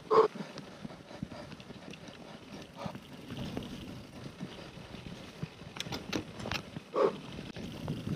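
Scott Genius LT 710 Plus mountain bike riding over a rough trail: steady tyre noise and rattling of the bike, with two short, louder sharp sounds, one at the very start and one about seven seconds in.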